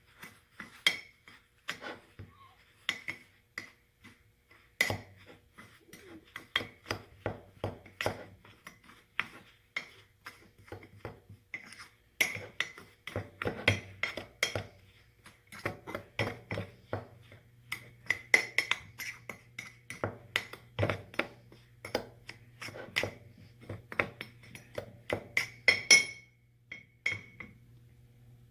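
A utensil stirring dry brownie mix in a mug, clinking against the mug's sides in rapid, irregular strikes that ring briefly. The loudest clinks come near the end, and the stirring stops shortly before the end.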